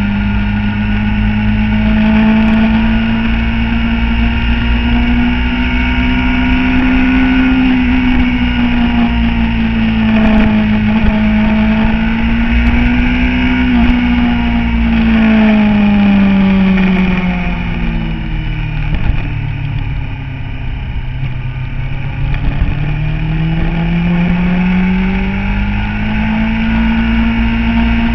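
Motorcycle engine running at road speed, its pitch rising and easing with the throttle through the bends, dropping lower about two-thirds of the way through as the bike slows, then climbing back up as it accelerates again.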